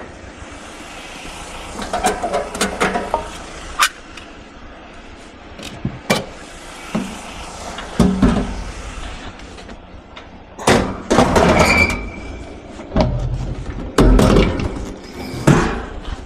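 Scrap metal being handled and loaded onto a truck: a string of knocks, clanks and scrapes, with louder heavy knocks about eight, eleven and fourteen seconds in.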